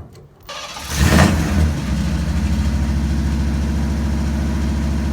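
Truck engine revving up about a second in, then holding steady at high revs under load while pulling to free a truck stuck in mud.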